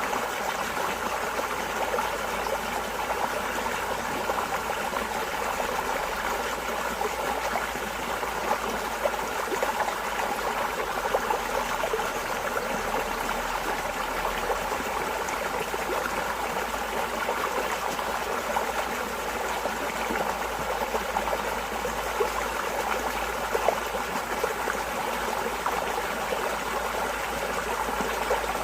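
Water running steadily in a stream, an unbroken rush of flowing water with small splashes throughout.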